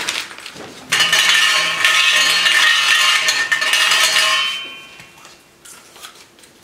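Draw lots being stirred inside a metal trophy cup, rattling and clinking against the metal so that the cup rings. The clatter starts about a second in and lasts about three and a half seconds, then gives way to a few faint clicks as a lot is picked out.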